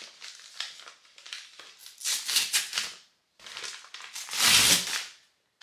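Brown kraft-paper Amazon mailer crinkling as it is handled and torn open, in several rustling bursts with the longest, loudest rip about four and a half seconds in.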